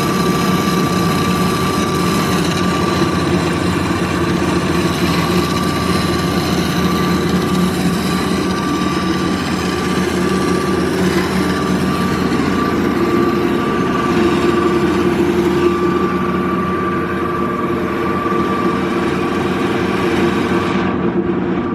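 Amada HA250W automatic horizontal band saw running: a steady machine hum with a constant whine above it, its high hiss dropping away briefly near the end.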